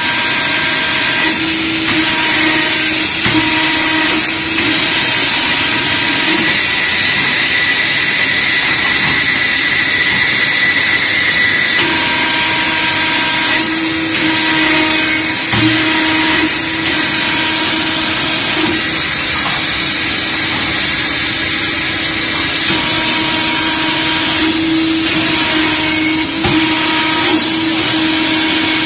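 An aluminium ladder riveting machine running: a loud, steady motor noise with a whine that comes and goes, and a couple of brief knocks.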